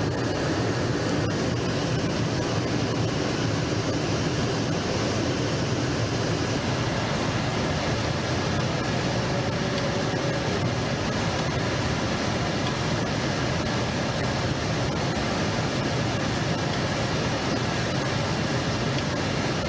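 Steady, even noise of a jet aircraft in flight, unchanging throughout.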